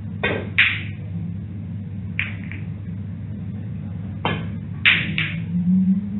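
Snooker shots: the cue tip strikes the cue ball with a sharp click, followed by the hard clack of balls hitting each other. There are two shots about four seconds apart, each with its own clacks, and a few lighter ball clicks in between, over a steady low hum.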